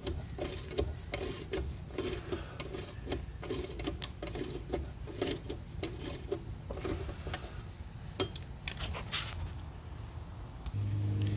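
9/16 ratcheting box wrench clicking in a steady run of ratchet clicks, about two to three a second, as it is swung back and forth by hand to unscrew a lawn mower's blade nut. The clicking thins out near the end.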